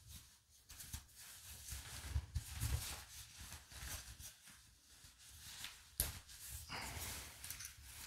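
Faint rustling and scuffing of a fabric garment bag being handled, with a sharp click about six seconds in.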